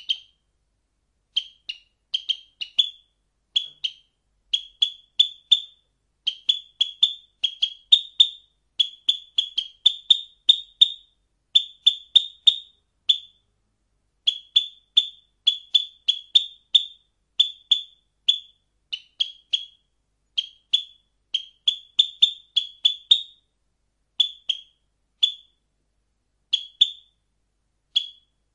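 Sparrow chirping: short, high chirps repeated in quick groups of two to four with brief gaps between.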